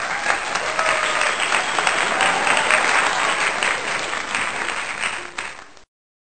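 Applause sound effect: a crowd clapping steadily, cutting off abruptly near the end.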